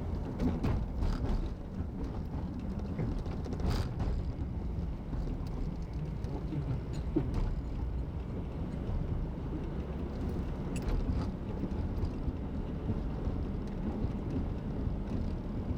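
Steady road and engine rumble inside a moving car's cabin, with a faint click about four seconds in.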